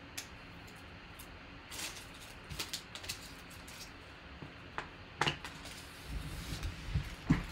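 Trading cards and paper cards being handled and set down on a table mat: scattered light rustles, clicks and taps, busier in the second half, with a sharper tap near the end.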